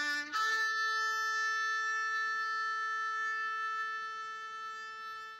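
A single horn blast on a wind instrument: a brief lower note jumps up to one long held higher note that slowly fades, then cuts off suddenly near the end.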